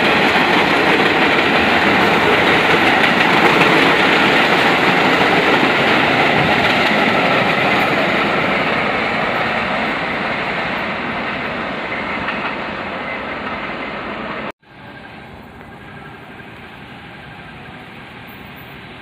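Subway train running on the rails, loud at first and slowly fading over about fourteen seconds. The sound then cuts off abruptly, leaving much quieter steady background noise.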